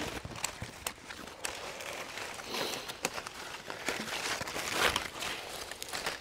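Rustling and crunching of leaves and cut branches, with scattered sharp clicks and a couple of louder rustles about two and a half and five seconds in.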